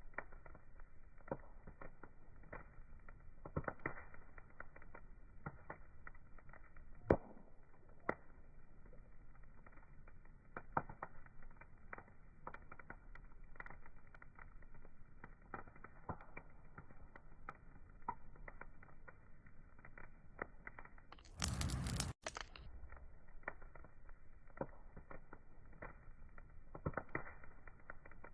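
Wood fire crackling: irregular small pops and snaps over a faint steady hiss. A louder, brighter burst of about a second comes roughly three-quarters of the way through.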